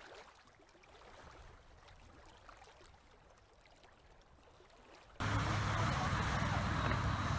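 Outdoor lakeside ambience at a cable water-ski lift: a steady rushing noise with a low hum starts suddenly about five seconds in. Before that there is only a faint hiss.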